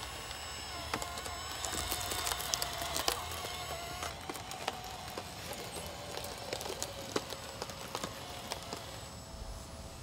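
RC bulldozer's small electric drive motors whining through their 200:1 gearing, the pitch wavering and sagging as the tracks take the load of the dirt. Scattered ticks of tracks and clods clatter and crunch throughout, and the whine dies away near the end.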